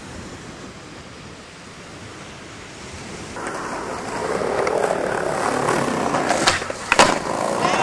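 Faint wind and surf, then skateboard wheels rolling on smooth concrete, growing louder as the skater nears, with two sharp board clacks about half a second apart.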